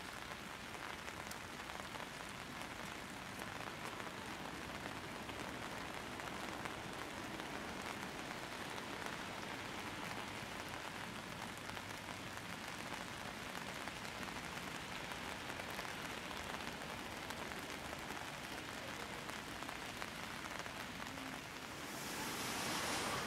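Rain falling on wet paving, a steady hiss with fine drips throughout. Near the end it gives way to a louder, even rushing hiss.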